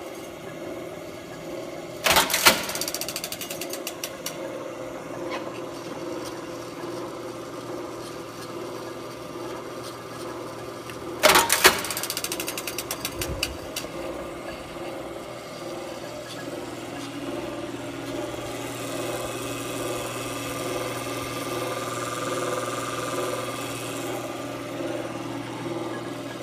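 Chicago Rivet riveting machine running with a steady motor hum. Twice, about two seconds in and about eleven seconds in, there is a loud clattering burst made of a quick run of metallic clicks.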